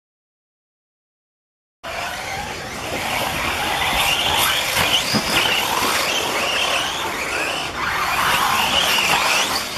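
Silence for about the first two seconds. Then several 1/8-scale electric RC buggies run on a dirt track, their motors whining in high tones that rise and fall as they accelerate and slow over the whoops, over a steady noise of tyres on dirt.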